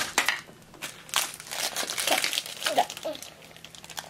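Shiny pink foil toy wrappers being crinkled and pulled open by hand, in irregular bursts of crackling.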